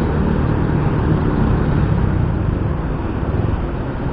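Steady low rumble of a ride on a Yamaha Mio i 125 scooter in stop-and-go traffic: engine, wind and surrounding traffic, picked up by an action camera's home-made external mic.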